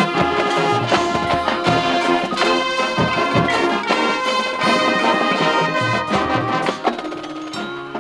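High school marching band playing loud sustained brass chords over drum hits. Near the end it drops back to a quieter passage.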